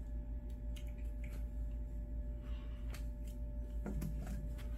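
Quiet room tone: a steady low hum with a faint steady tone running through it, and a few faint small clicks.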